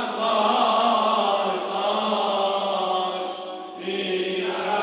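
Male voices chanting a Shia mourning lament (noha), the melody drawn out in long held notes without clear words, easing off briefly about three and a half seconds in.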